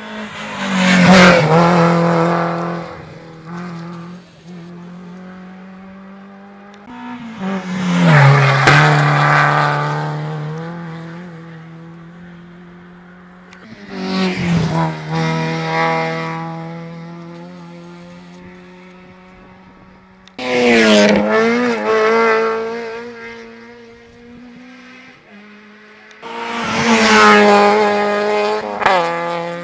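Rally cars passing one after another at speed, five in all, about six seconds apart. Each engine's pitch and level rise as it approaches and fall away as it goes by. A low steady hum continues between the passes.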